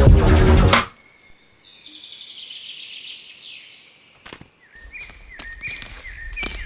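Backing music cuts off abruptly about a second in, followed by a high swishing whoosh lasting about two seconds. Then outdoor ambience with a low rumble and birds chirping in short repeated calls, with a few sharp clicks.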